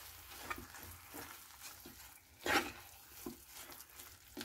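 Steel spoon stirring and scraping a thick potato-and-vegetable burger filling around a kadai as grated cheese is mixed in, with a faint sizzle from the pan on low heat. Short scrapes come irregularly, with one louder scrape about two and a half seconds in.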